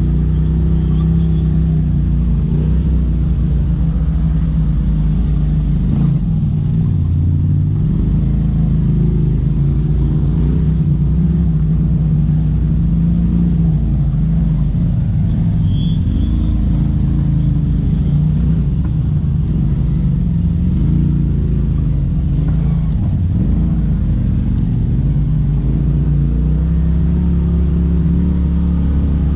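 Polaris RZR side-by-side engine running at low revs, its pitch rising and falling as the throttle is worked over rough ground, with a single knock about six seconds in.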